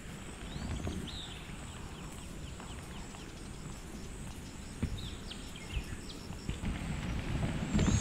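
Outdoor ambience of a walk along a leafy forest trail: steady low rustle and handling of a walking, handheld camera, with a few short bird chirps now and then.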